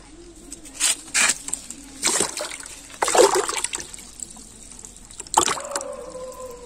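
A black tilapia thrashing in a shallow bowl of water, making several short, loud splashes. A held musical note comes in near the end.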